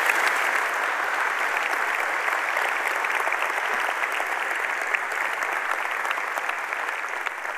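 Congregation applauding, a dense patter of many hands clapping that slowly tapers off.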